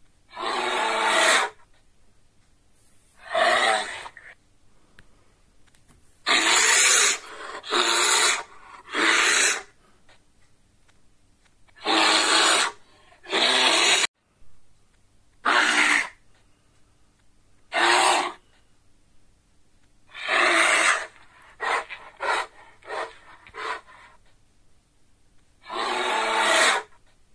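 A series of loud, breathy exhalations, huffs of about half a second to a second and a half, coming irregularly, some in quick runs of three or four with short quiet gaps between.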